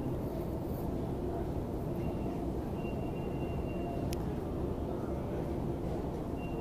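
Steady mechanical hum and rumble of a long subway-station escalator running, with a faint high whine partway through and a single sharp click about four seconds in.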